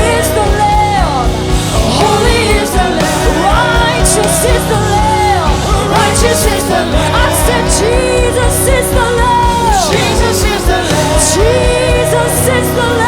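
Live worship band playing with a lead singer, whose long held notes waver and glide over a steady drum beat.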